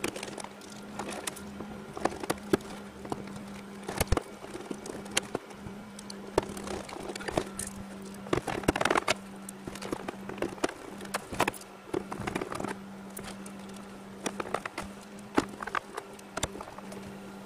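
Scattered clicks, knocks and rustling as the portable air conditioner's plastic housing and power cord are handled during reassembly, over a steady low hum.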